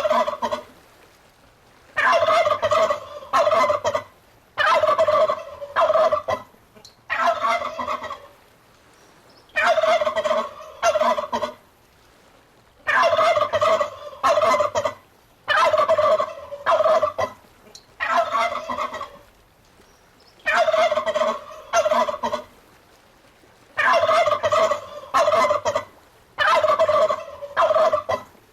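Domestic turkey gobbling over and over, each rapid, rattling gobble lasting one to two seconds, with short pauses between.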